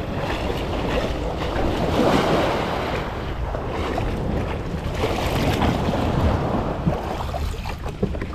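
Small sea waves washing and splashing around an inflatable boat in shallow water, with wind buffeting the microphone as a steady low rumble.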